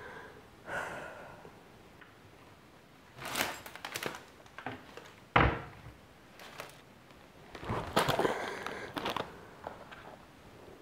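Indoor handling noises: clusters of rustling and light knocks, with one sharp thump about five seconds in.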